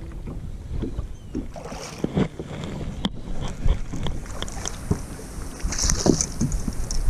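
Wind buffeting the microphone on a bass boat, with irregular clicks and knocks of rod, reel and boat handling while an angler fights a hooked bass. A brief hissing rush comes about six seconds in.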